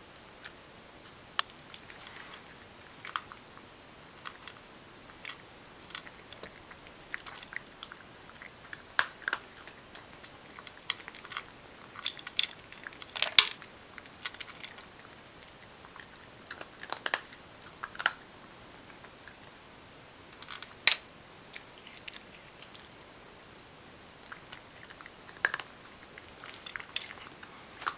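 Ragdoll cat chewing dry kibble: sharp, irregular crunches in clusters with short pauses between them, the loudest bunch around the middle.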